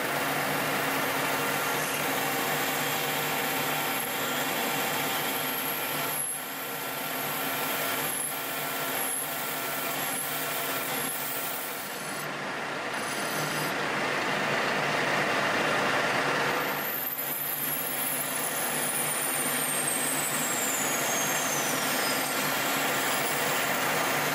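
Colchester Master 2500 lathe running with its chuck spinning while a parting tool cuts a thin spacer ring off a tube: a steady machine hum with a hiss of cutting. In the second half, a few thin high tones slide down in pitch.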